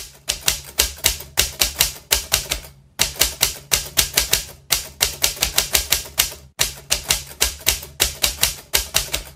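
Typewriter sound effect: keys clacking at about five strikes a second, in runs broken by a few brief pauses, accompanying text typed out on screen.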